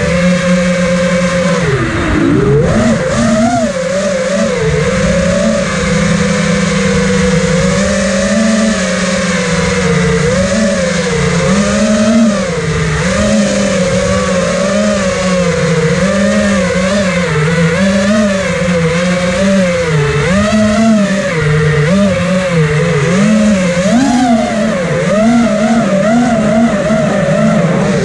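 Electric motors and propellers of a small drone, heard from on board: a steady buzzing whine that wavers up and down in pitch with the throttle and dips sharply about two seconds in.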